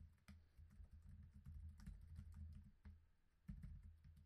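Faint typing on a computer keyboard: irregular keystroke clicks, with a short pause about three seconds in, over a low steady hum.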